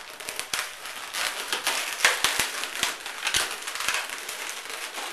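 Gray 260 latex twisting balloon squeaking and crackling as it is twisted into loops, an irregular run of rubbery squeaks and sharp clicks, loudest about two seconds in.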